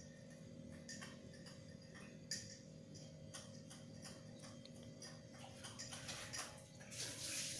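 Faint scattered clicks and taps of hands working a wet flour mixture in a tray, with water sloshing near the end.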